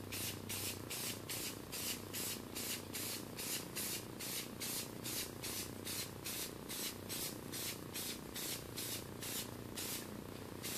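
Aerosol spray-paint can hissing in rapid short bursts, about three a second, stopping shortly before the end. The nozzle is pressed and released over and over to build an even coat of paint.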